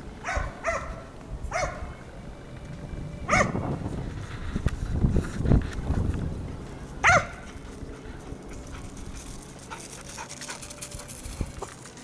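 Hunting hound giving short, high-pitched barks, about five of them at irregular intervals, with the loudest about three and seven seconds in. This is a hound giving voice while working a hare's trail in snow.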